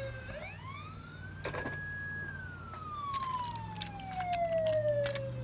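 A siren winding up in pitch, holding briefly, then sliding slowly down over about three seconds, with several sharp clicks and knocks over it.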